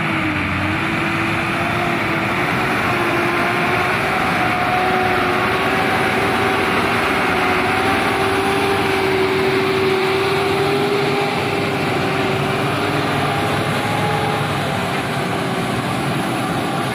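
Hino 280 JD dump truck's diesel engine pulling steadily under load as the truck passes close by, with a steady engine note that slowly creeps up in pitch.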